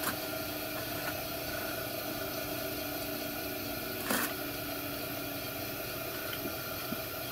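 Steady background hum with a few faint clicks, and a brief metallic clink about four seconds in as a bent bicycle spoke and the e-bike hub motor are handled on the bench.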